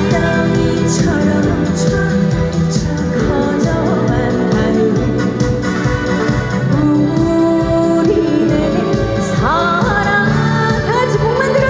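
A song performed live through a PA: amplified accompaniment with a steady beat and bass, and a woman singing, her voice standing out most plainly near the end.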